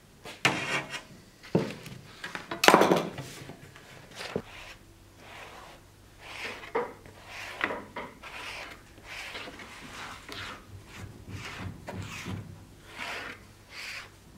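Tools and a sheet of leather handled on a wooden workbench: knocks and scrapes, with a loud scraping rustle a little under three seconds in. Then a foam brush spreads glue over leather and a wooden scabbard core in short, soft, repeated strokes, roughly one a second.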